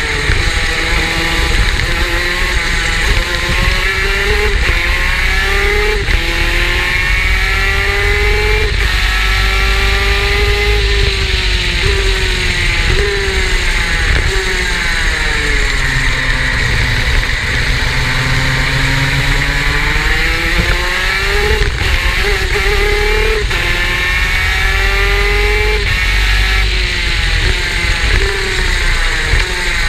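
Superkart's 250 cc two-stroke engine accelerating hard up through the gears, its pitch climbing in steps with a short drop at each shift. About halfway through the revs fall away for several seconds, then it climbs again and drops back a few more times.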